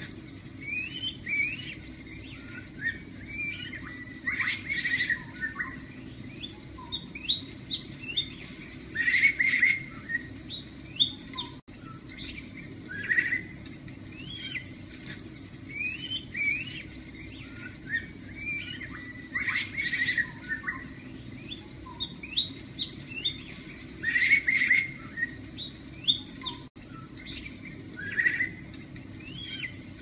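A drongo singing: a busy run of short whistled notes and scratchy chirps, the loudest clusters coming back every four to five seconds in a repeating sequence.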